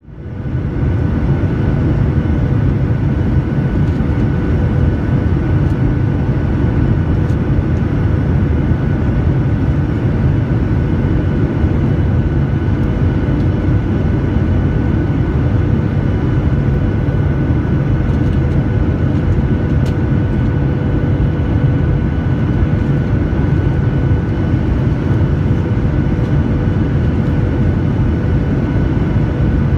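Jet airliner cabin noise heard from a window seat over the wing: turbofan engines and rushing air on the landing approach, a steady low rumble with a constant hum above it. It fades in over the first second.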